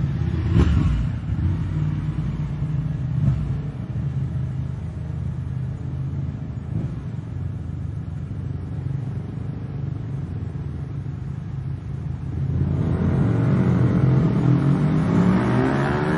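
Motorcycle engines running with a steady low rumble, then revving harder about three-quarters of the way through, louder and rising in pitch.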